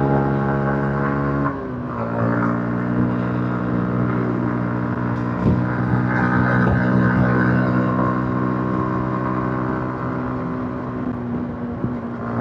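Yamaha MT-15's 155 cc single-cylinder engine on its stock exhaust, running steadily under way. About a second and a half in, the note drops in pitch and gets a little quieter, as with the throttle eased or a gear change, then holds steady again.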